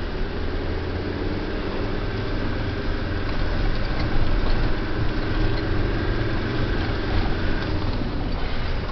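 Land Rover Defender 110's engine running as it drives slowly on a rough gravel track, heard from inside the cab: a steady low drone with a thin steady whine above it through the middle. It grows a little louder about four seconds in.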